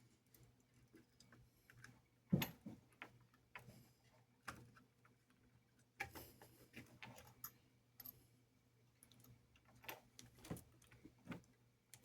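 Faint, scattered small clicks and taps of plastic and metal model locomotive parts being handled and fitted together, the loudest a sharp click about two seconds in, over a faint steady hum.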